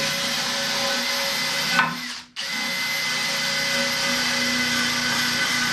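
Handheld power tool, drill-like, running at a steady speed while scouring old gasket adhesive off a valve cover. It stops briefly about two seconds in and then starts again.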